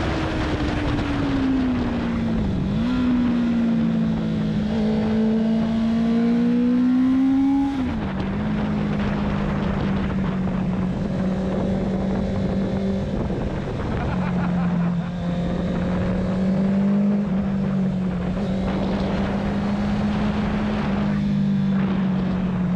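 Inline-four sport motorcycle engine under way, with a steady rush of wind noise. The engine note falls as the bike slows, jumps up at a downshift about three seconds in, climbs under acceleration, and drops at an upshift about eight seconds in. It then holds an even note while cruising.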